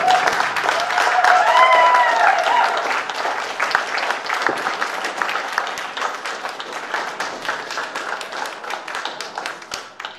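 A roomful of people applauding, with dense clapping that slowly thins and dies away toward the end. A voice rises and falls over the clapping during the first three seconds.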